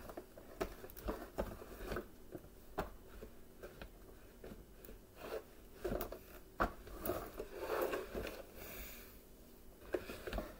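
Plastic parts of a Bissell Powerforce bagless upright vacuum being handled and fitted together: irregular clicks, knocks and rubbing, with one sharper knock a little past halfway.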